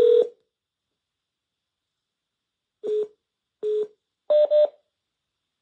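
Telephone line tones: a long steady tone cuts off just after the start, then after a pause come two short beeps and a quick higher-pitched double beep, the signals of a call being placed.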